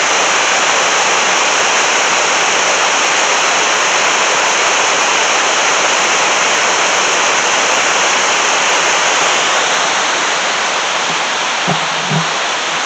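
River water rushing over rapids: a loud, steady rush that eases a little near the end, with a couple of short, soft thumps just before the end.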